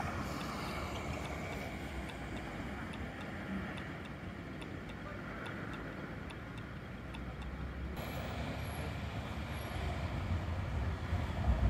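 Steady street traffic noise, with faint, evenly spaced ticking in the middle. Over the last couple of seconds it grows louder as a Bombardier Flexity Classic low-floor tram approaches.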